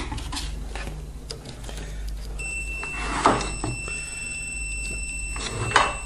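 Digital multimeter's continuity beeper sounding one steady high beep from a little under halfway in, as its test probes rest across a microwave-transformer winding that reads near zero ohms. Two brief knocks of the probes being handled, midway and near the end.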